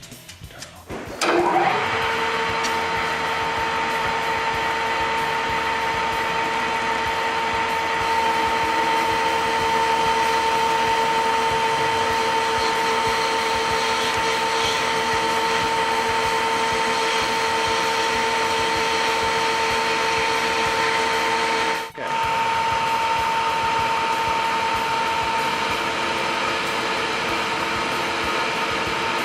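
Engine lathe running: a steady geared whine over a mechanical hum that comes in about a second in. It breaks off briefly about three quarters of the way through, then runs on with a slightly different whine.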